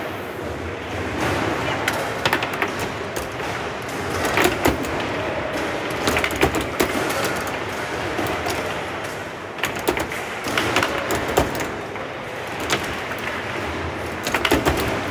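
Foosball table in play: the hard ball cracking against the plastic players and the table walls, and the steel rods clacking and sliding, as sharp knocks that come irregularly and often in quick clusters, over steady background noise.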